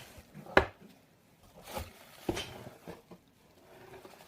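Handling noises: a few sharp clicks and knocks, the loudest about half a second in.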